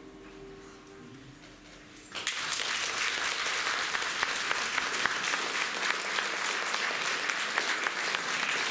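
The last note of a violin, cello and piano trio fades away. About two seconds in, an audience breaks into applause, and the clapping continues steadily.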